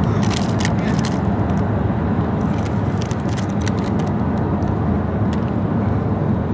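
Steady road and engine noise heard inside a moving car's cabin, with a foil chip bag crinkling as it is handled, in short spells, most of them in the first second or so.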